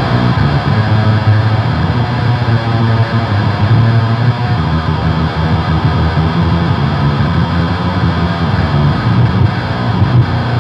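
Electric guitar played through a TC Electronic Eyemaster distortion pedal into a Mesa Boogie amp, with no noise gate: continuous heavy, saw-like Swedish death metal riffing with a strong low end, the Boss HM2-style tone.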